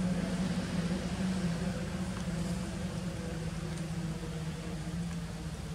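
A steady engine hum, slowly fading away.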